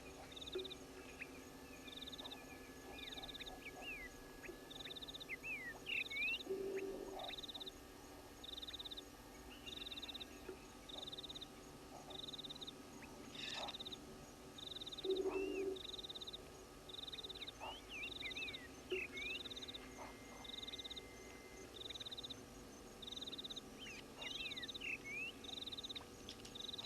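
Animal calls at a waterhole: a high, pulsed call repeating about once a second, with bird chirps and whistles over it and a few short, lower calls, over a faint steady hum.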